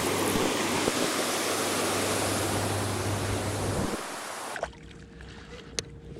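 Rushing river water, a steady even noise that cuts off abruptly about four and a half seconds in, leaving much quieter sound with a few faint clicks.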